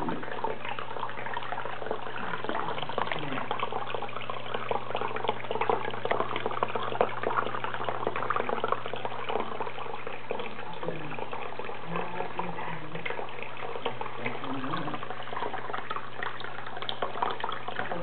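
Tabletop dragon fountain with a thin stream of water pouring from the dragon's mouth and splashing steadily into the shallow basin, over a steady low hum.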